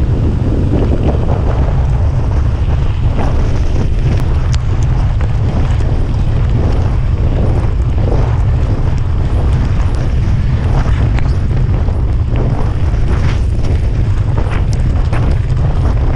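Heavy wind buffeting on an action camera's microphone as a mountain bike rolls fast downhill, over a steady deep rumble of tyres on a wet track. From a few seconds in, frequent clicks and rattles come from the bike on the gravel surface.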